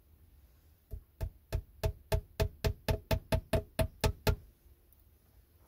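An axe used as a hammer, knocking against the log wall about fourteen times in quick succession. The blows speed up as they go and stop a little past the middle.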